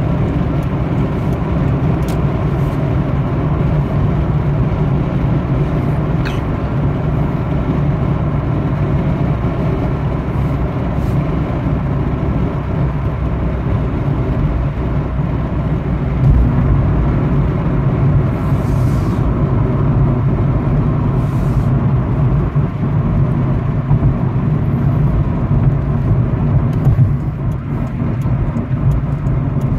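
Steady road and engine noise inside a Honda Civic's cabin at highway speed, around 60 mph, with a low rumble. It eases a little near the end as the car slows onto an exit ramp.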